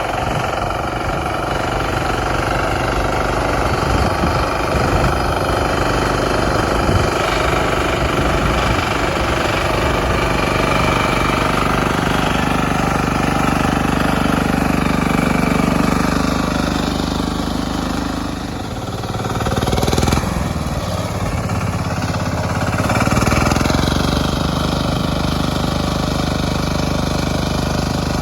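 Lifan C192F single-cylinder engine of a home-built mini tractor running steadily after its key was repaired. It drops in speed briefly a little past halfway, then picks up again, with another short rise a few seconds later.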